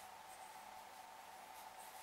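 Near silence: a faint steady hum, with a few light ticks as cut wooden pieces are handled.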